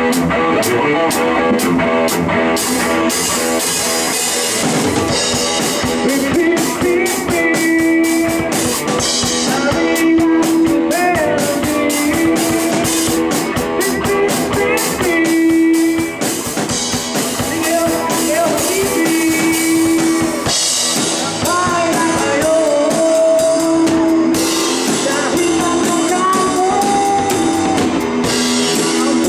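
Rock band playing live: electric guitars, bass guitar and a drum kit with cymbals, with a man singing into a microphone.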